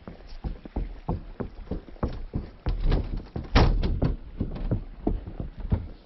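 A Quarter Horse's hooves knocking on the wooden planks of a bridge, a hollow, uneven run of hoof strikes about three or four a second, loudest about halfway through.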